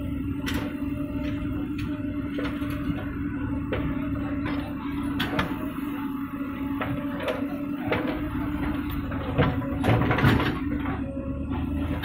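JCB 3DX backhoe loader working: its diesel engine drones steadily under load while the bucket and arm linkage clank and knock as it digs and swings soil. A louder burst of clatter and scraping comes about nine to ten seconds in as the bucket works the ground.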